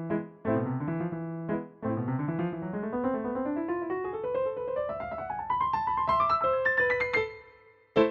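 Piano playing a fast run of notes that climbs steadily from the bass up into the treble, after two short clipped chords with brief breaks. The run fades away, and a single loud, short chord is struck near the end.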